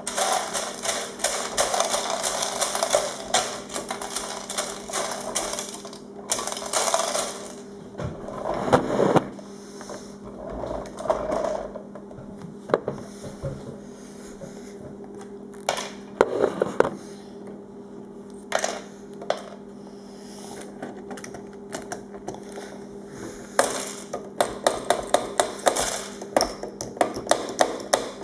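LEGO plastic bricks clicking and rattling as a hand works a brick-built garbage truck's side-loader arm and sets brick garbage cans down on the floor, with a quick run of sharp clicks near the end. A steady low hum runs underneath.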